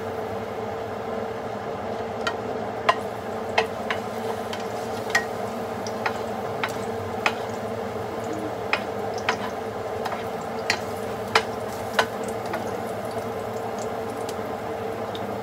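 Oil sizzling in a hot frying pan as the cook starts the sauté: a steady sizzle, broken by sharp clicks about once a second, over a steady low hum.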